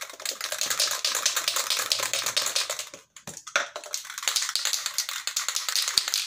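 Aerosol can of clear-coat spray paint being shaken hard, its mixing ball rattling in a fast run of clicks, with a brief pause about three seconds in.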